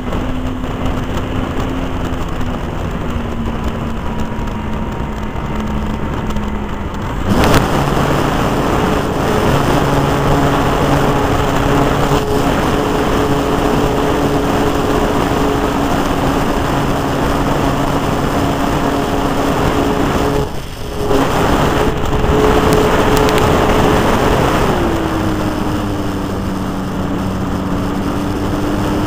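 Small engine of a radio-controlled Zlin model airplane running in flight, heard from a camera on the wing over steady wind rush. Its pitch steps up sharply about seven seconds in, the sound dips for a moment around twenty seconds, and the pitch falls back again near the end.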